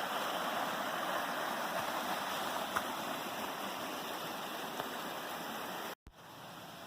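Waterfall and stream water rushing steadily. About six seconds in the sound cuts off abruptly and comes back as a quieter hiss.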